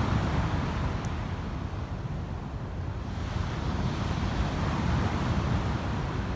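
Wind buffeting the microphone over the steady wash of surf, low and rumbling, swelling slightly about halfway through.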